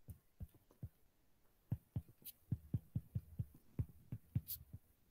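Faint, irregular soft taps of a pen stylus writing on a tablet: a few scattered at first, then a quicker run of a dozen or so from about two seconds in.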